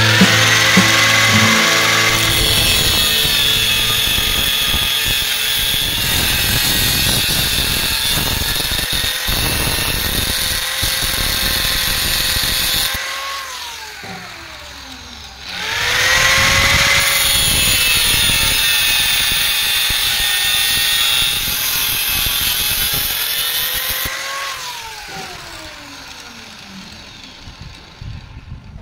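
Angle grinder with a cut-off disc cutting through a flat steel bar held in a vise, twice. Each time the motor whines up to speed, runs loud through a long cut, then winds down with a falling pitch; the second run starts about halfway through.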